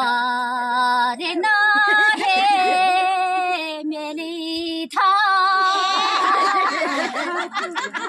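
A woman singing unaccompanied in long held notes, each held for about a second, with other voices overlapping her near the end.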